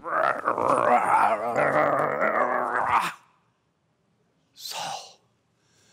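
A group of voices roaring together, loud and growling, for about three seconds before cutting off. About a second later comes a short, breathy rush of air.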